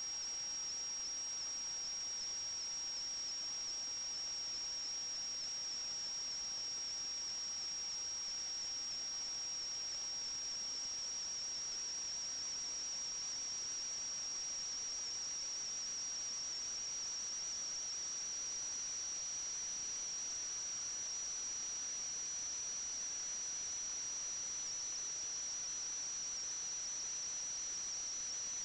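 A steady high-pitched electronic whine over constant hiss, the tone creeping slightly higher in pitch about halfway through.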